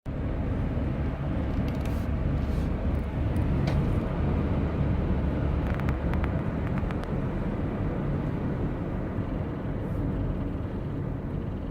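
Car running with a steady low road and engine rumble. A few faint clicks come from the brakes between about two and seven seconds in: the clicking the car makes when braking.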